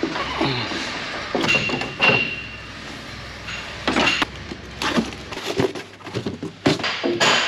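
Scattered knocks, clinks and rattles of a combine's red plastic side panel and parts being handled and pulled off, with a brief high squeal about one and a half seconds in and a quick run of knocks near the end.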